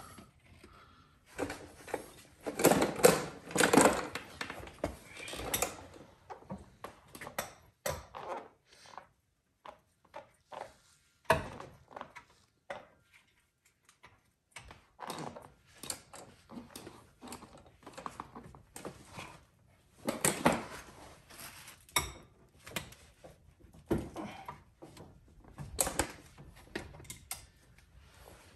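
Scattered metallic clinks, clicks and clanks of a breaker bar and hand tools working on a Lexus LS400's rear brake caliper bracket bolts and caliper, with the densest clatter about three seconds in.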